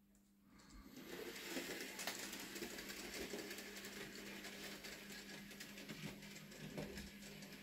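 Bachmann Rusty model locomotive's small electric motor whirring steadily as it pulls its wagons along the track, with fine rapid clicking from the running gear and rails. It starts about half a second in.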